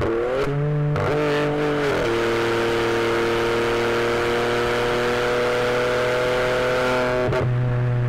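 VW Polo TSI engine with an aftermarket exhaust and stage 2 remap, heard from inside the cabin while driving. In the first two seconds the engine note shifts and steps in pitch, with a couple of sharp cracks. It then holds a steady drone at speed, with a brief crack and dip in pitch near the end.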